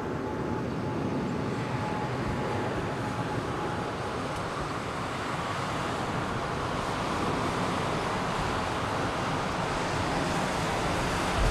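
Airbus A320-214's CFM56-5B turbofan engines at taxi power, a steady rushing hum growing slightly louder, with a faint high tone that fades out about four seconds in.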